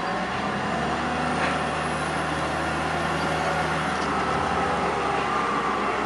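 Diesel engine of a large Volvo wheel loader with a log grapple, running steadily as the machine carries a load of logs.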